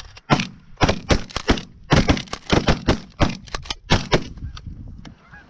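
Several hunters firing shotguns in a rapid volley, many shots close together and some overlapping, for about four seconds before the firing stops.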